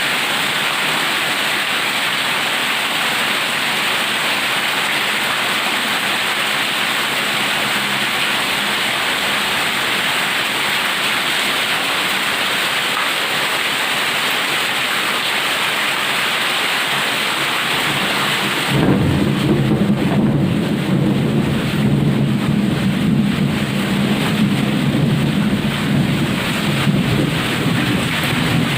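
Heavy rain pouring steadily as an even hiss. About two-thirds of the way in, the sound changes suddenly to a deep rumble of thunder under the rain, with less of the high hiss.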